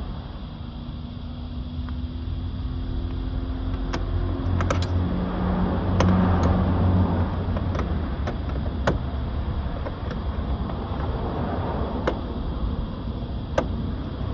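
A few sharp light clicks and taps from hands working on a stripped car door, over a steady low rumble.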